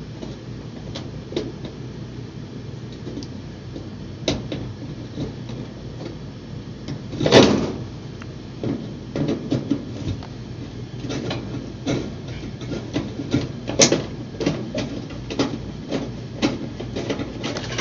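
A screwdriver working on the sheet-metal evaporator cover of an upright beverage chiller: scattered clicks, scrapes and knocks as the screws are worked loose, with two louder knocks about seven and fourteen seconds in, over a steady low hum.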